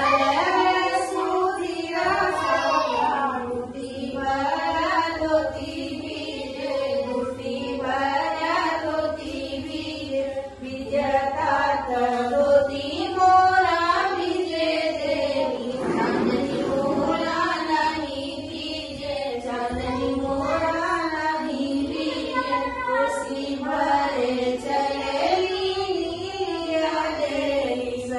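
A group of women singing a Chhath folk song together, voices in unison in repeating melodic phrases that rise and fall.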